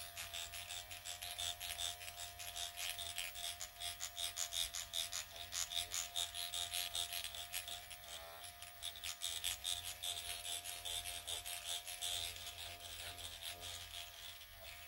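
Dr. Pen electric microneedling pen running with a steady hum, its needle cartridge making rapid fine ticking as it is glided over the skin of the cheek.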